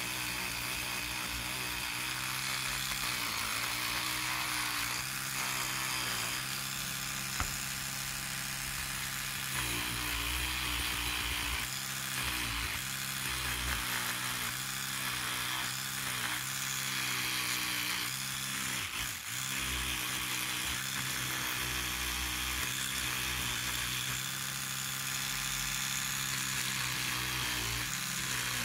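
Electric toothbrush with a round oscillating head running continuously, its bristles scrubbing loose rust off a steel Luger P08 pistol grip frame. The buzz is steady underneath, with a hum that wavers in pitch, and there is a single sharp click about seven seconds in.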